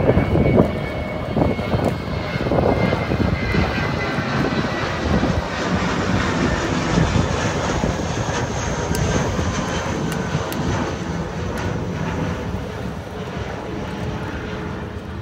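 Jet aircraft engines heard passing over: a steady rush with a faint high whine, easing off near the end.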